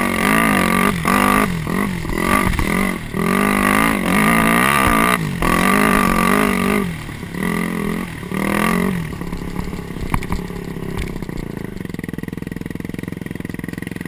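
Dirt bike engine revving up and down over and over with the throttle as it rides a trail. About nine seconds in it drops to a steady low running.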